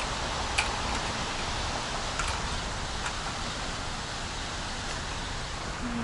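Steady rushing and splashing of a waterfall, an even hiss with a few faint ticks of spray.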